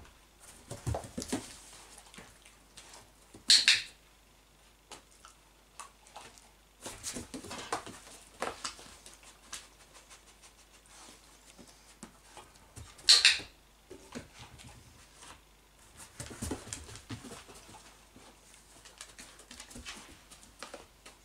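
Two short, sharp clicks of a dog-training clicker, about ten seconds apart, marking the behaviour being trained. Between them a dog's paws and claws patter on a wooden floor.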